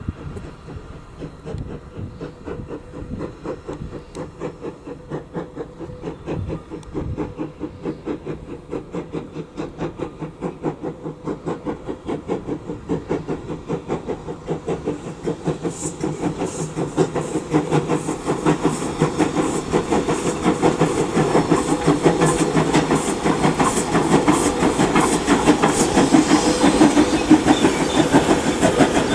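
Steam locomotive NM25 working a train, its exhaust chuffing at about four beats a second and getting steadily louder as it draws near.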